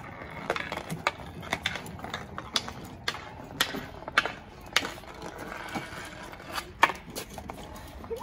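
Street hockey sticks clacking on the ball and the asphalt driveway during play: a dozen or so sharp, irregular clacks.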